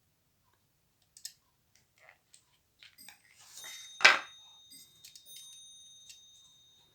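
Plastic packaging being handled: scattered small clicks and one sharp snap about four seconds in as the diecast model is taken out of its plastic cocoon. A steady high-pitched tone sounds through the second half.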